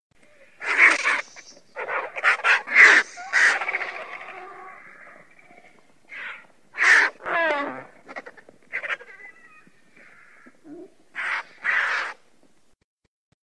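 Griffon vultures giving harsh, raspy calls in short bursts: a quick cluster in the first few seconds, then scattered calls, one with a falling, wavering pitch about seven seconds in, and a final pair near the end.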